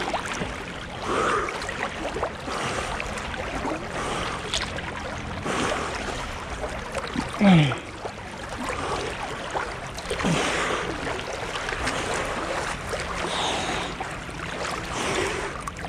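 River water sloshing and splashing close to the microphone as a swimmer moves through it, with two short falling gasps about seven and ten seconds in.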